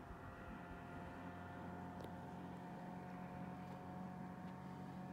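A motorboat engine far below, a faint, steady drone as the boat crosses the lake.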